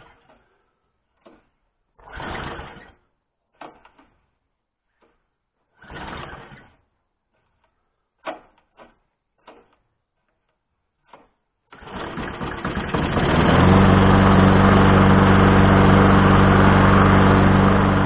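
Briggs & Stratton-engined Mountfield petrol lawn mower being pull-started after sitting outside all winter: two short pulls of the recoil starter crank the engine without it catching, with a few clicks in between. About twelve seconds in the engine fires, builds up and settles into a steady run.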